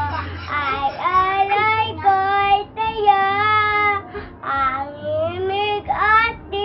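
A young girl singing unaccompanied, holding long notes with a slight waver and short breaks for breath between phrases.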